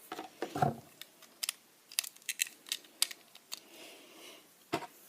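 Plastic LEGO bricks being handled and pressed onto a build: a string of sharp little clicks and clacks, with a dull knock about half a second in and another near the end.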